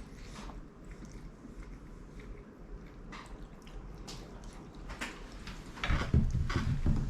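People chewing bites of chicken nugget, with small wet mouth clicks. About six seconds in, a louder low rumbling noise starts.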